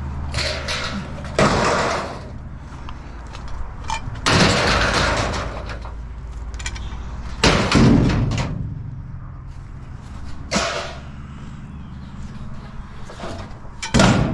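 Pieces of scrap metal thrown down onto a load, five loud crashes a few seconds apart, over a steady low hum.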